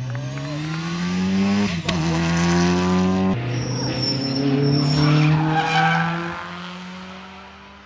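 Rally car accelerating hard, engine pitch climbing and dropping sharply at two quick upshifts, then the sound fades as the car pulls away.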